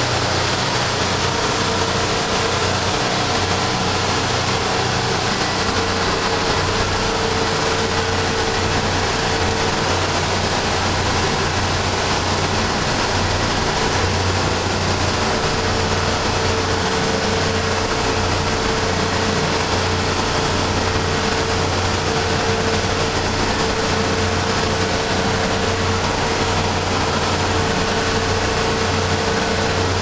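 Sealine SC29 motor cruiser under way at speed: engine running steadily with a constant hum, mixed with rushing water and wind noise, heard from inside at the helm.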